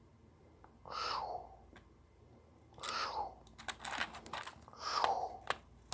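A person making slow, exaggerated breathing sounds, a hissing breath about every two seconds, imitating an astronaut breathing through a helmet apparatus. Small sharp clicks and taps come between the breaths in the second half.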